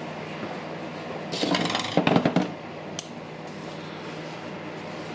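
A short burst of clicks and rattles, like tools or parts being handled on a workbench, comes between one and two and a half seconds in, with a single click shortly after. A steady low hum sits underneath.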